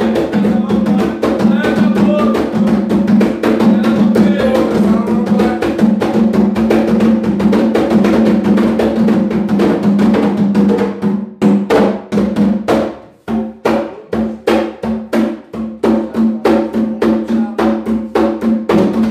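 Two atabaques, tall Afro-Brazilian hand drums, played with bare hands in a fast, dense rhythm. About eleven seconds in the playing thins to sparser, separate strokes with short breaks, then fills back in.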